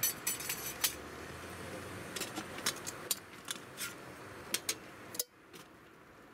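Light metal clinks and taps of a camp kettle and its lid being handled, about a dozen sharp ticks over five seconds, over a steady rush that cuts off abruptly about five seconds in.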